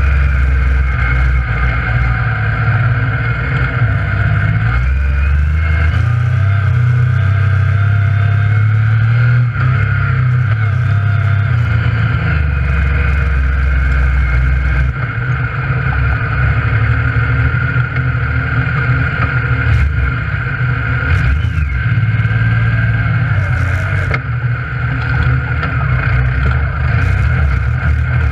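Yamaha YXZ1000R side-by-side's three-cylinder engine running while driving a dirt trail, heard from inside the cab, its low note shifting up and down every few seconds with the throttle.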